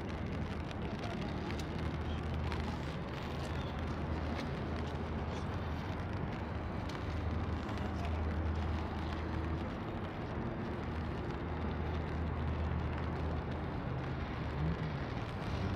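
Steady rain falling on wet pavement, an even hiss with scattered faint drip ticks, over a low, steady city hum.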